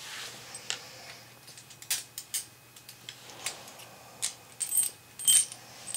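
Irregular sharp clicks and light metallic taps from hand tools and parts being handled, a couple of them ringing briefly near the end.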